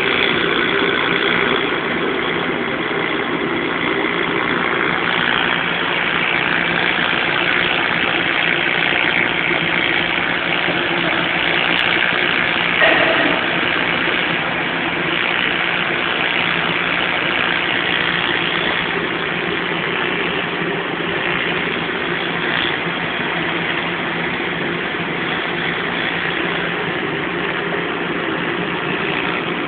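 TIG welding: the arc and the welding machine give a steady buzzing hiss with an even hum underneath, with a brief change about 13 seconds in.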